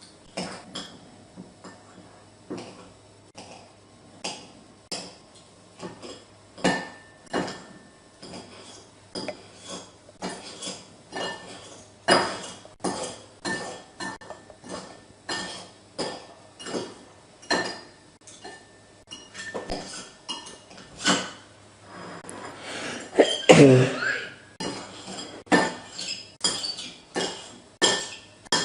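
Dishes and cutlery clinking: sharp clicks and taps about once or twice a second, as in eating from a plate. About three-quarters of the way through comes one short, loud burp.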